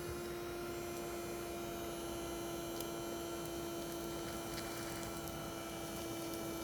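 Small battery-powered DC motor spinning a homemade vacuum's fan, a steady hum with a few faint ticks.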